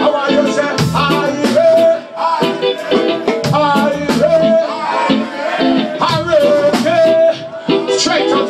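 Live reggae music at full volume: a band's drums and bass keep a steady beat while a male vocalist sings held, gliding notes into a microphone.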